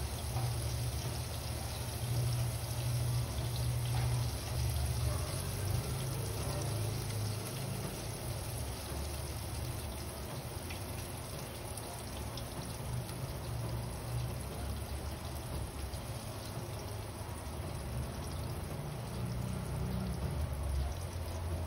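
Battered squid rings (calamares) deep-frying in a saucepan of hot oil: steady sizzling and crackling, with a steady low rumble underneath.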